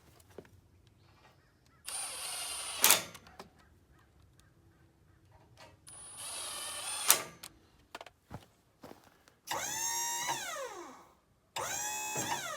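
Power drill driving screws into cedar cants, in four short runs. In the last two runs the motor's pitch sinks as the screw pulls tight.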